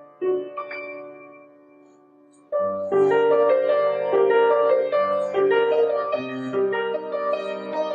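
Portable digital piano keyboard playing in a piano voice: a note struck at the start dies away, then about two and a half seconds in the playing starts up again loudly with bass notes under a melody.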